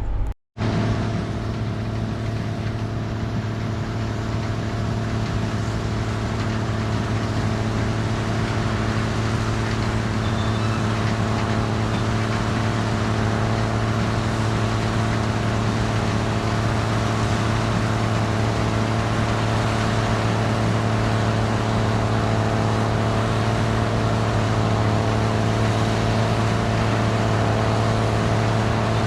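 Gleaner R72 combine running steadily, a constant engine drone with machinery noise, broken by a momentary gap just after the start.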